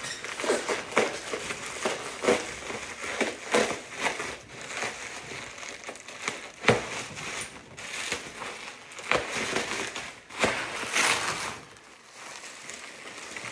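Plastic bubble wrap crinkling and crackling as it is handled and peeled open, with irregular sharp crackles and rustles throughout.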